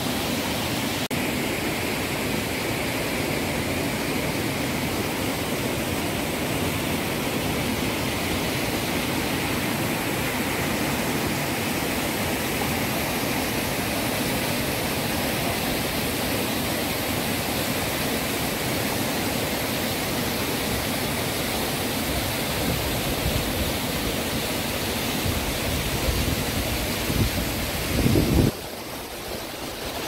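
Waterfall rushing: a steady, even noise of falling water. Near the end come a few low thumps, then the sound drops away suddenly.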